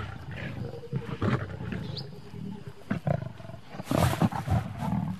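Lions growling as they squabble over a warthog carcass while feeding, with a loud, harsh outburst about four seconds in.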